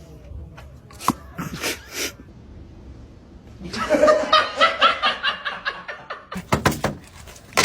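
A person laughing in a run of quick breathy bursts, with a few sharp knocks or clicks before it.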